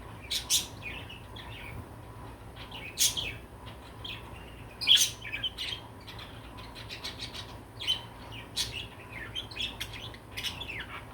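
Budgerigar chirping: a handful of sharp, loud chirps a few seconds apart, with softer warbling chatter between them that grows busier in the last few seconds.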